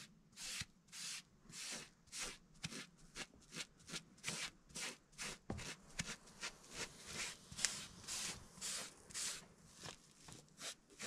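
Foam brush stroked repeatedly along a charred wooden hiking stick, spreading tung oil: a soft, rhythmic swishing rub at about two strokes a second.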